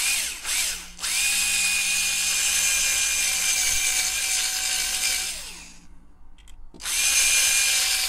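Handheld electric drill drilling out the rivet that holds a diecast toy car's base. It gives a short burst, then about four seconds of steady running that winds down with a falling pitch, and it starts up again near the end.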